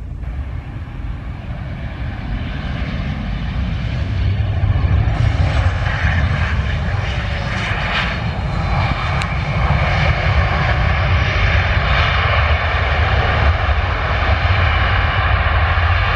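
Ryanair Boeing 737's jet engines running loud as the airliner lands and rolls out on the runway, growing louder about four seconds in and then holding steady with a deep rumble underneath.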